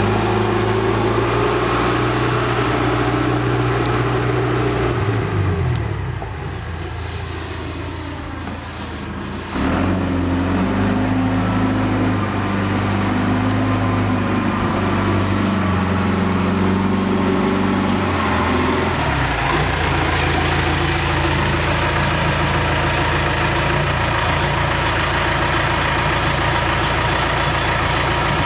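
John Deere 410E backhoe loader's diesel engine running. About five seconds in it drops to a quieter, lower note with the pitch sliding, then near ten seconds it comes back up suddenly to a steady run. Its tone shifts again a little before twenty seconds.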